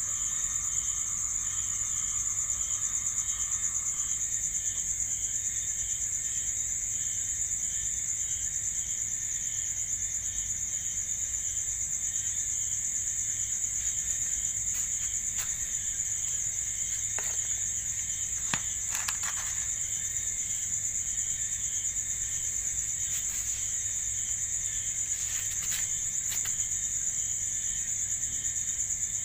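Insects chirping steadily: a continuous high-pitched trill with a faster pulsing chirp beneath it. A few faint clicks come in the second half.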